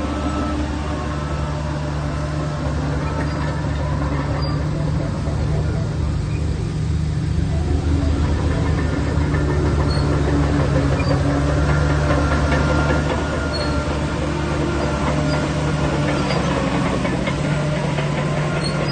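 Heavy diesel earthmoving machinery, a bulldozer and dump trucks, running with a steady low engine drone that swells a little in the middle.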